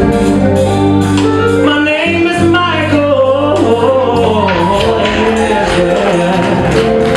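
Live band playing with a man singing lead into a handheld microphone, his voice sliding and wavering over sustained chords and a steady beat.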